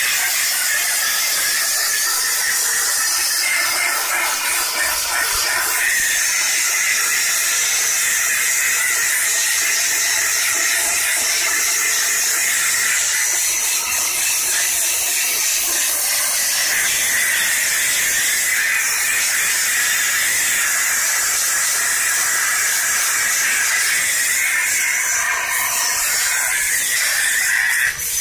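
Vacuum cleaner running steadily with a loud, even hiss.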